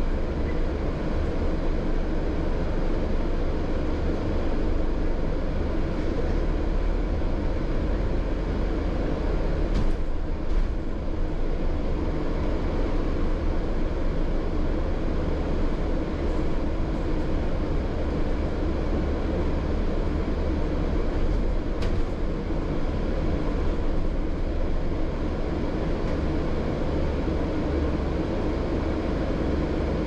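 Steady rumble of a London double-decker bus in motion, heard from the upper deck: engine drone and road noise, with a faint rattle or tick about ten seconds in and again a little past twenty seconds.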